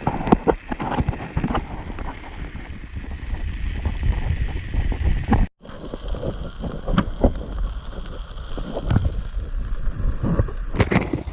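Wind rumbling and buffeting on the camera microphone, with irregular knocks and handling clatter. The sound breaks off sharply about five and a half seconds in and picks up again.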